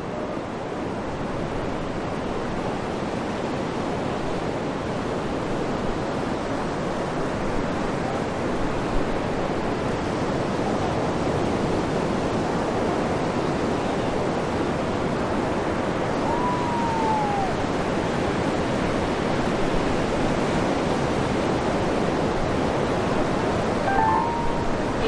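Sea surf on a sandy beach: a steady wash of breaking waves. A single short falling tone is heard about two-thirds of the way through.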